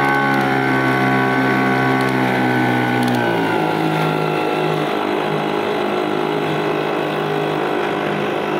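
Storm T3.5 outboard motor running at speed, then throttled back about three seconds in, its pitch falling and settling into a slower, steady run.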